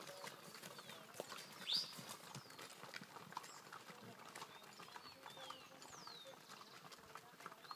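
Pack mules' hooves clopping irregularly as they walk a trail, with several high chirping calls over them, the loudest about two seconds in.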